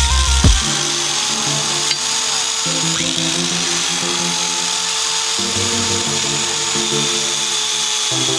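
Electric drill motor running steadily with a high whine, under background music with a melodic bass line.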